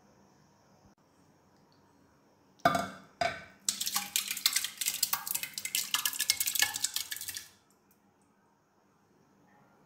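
Steel bowl knocking twice against a steel pot, then about four seconds of wet, crackling scraping and splattering as thick curd is tipped out of the bowl into the pot, stopping suddenly.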